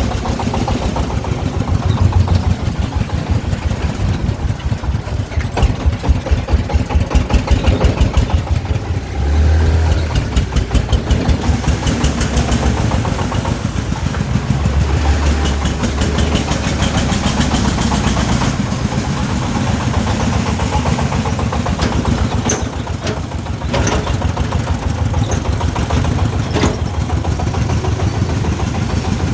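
Diesel engine of a working sand-hauling machine running with a steady, pulsing chug, working harder twice, about nine seconds in and again around fifteen seconds in.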